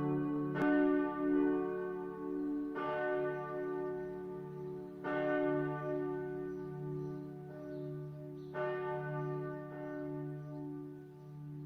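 Church bells ringing, with a fresh strike every two to three seconds, four in all. Each strike rings on and fades over low, steady bell tones that pulse in loudness between strikes.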